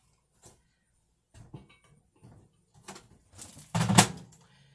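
Light knocks and clatter of a Tupperware MicroPro Grill being handled and set into a microwave oven, with a louder clunk near the end.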